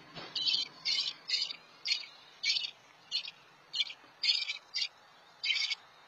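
American robin chirping in a run of short, evenly repeated chirps, about two a second.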